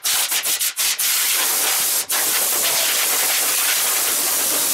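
Compressed-air blow gun hissing as it blasts dust out of an old PC tower: several short bursts in the first second, then a steady blast of about four seconds with a brief break near two seconds.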